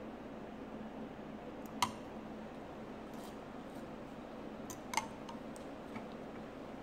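Two sharp clinks of a fork against a ceramic bowl, about three seconds apart, with a few fainter ticks, over a steady low room hum.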